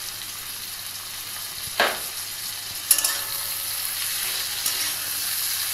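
Flat beans and potato slices frying in oil in a metal kadai, a steady sizzle, with grated spice paste and turmeric frying among them. A metal spatula scrapes and clinks against the pan a few times as they are stirred, and the sizzle grows a little louder about three seconds in.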